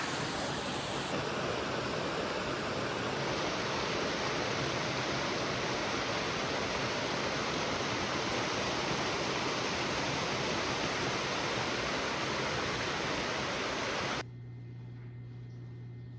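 A steady, even rushing noise. About fourteen seconds in it cuts off abruptly and a quieter, steady low hum takes over.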